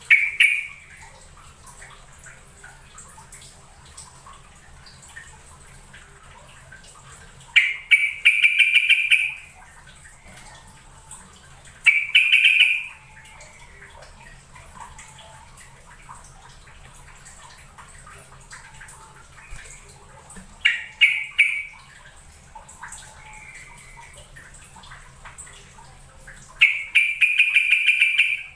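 Yellow-vented bulbul (trucukan) calling in five loud bursts of rapid, chattering notes, some bursts lasting about two seconds, with quiet gaps between them.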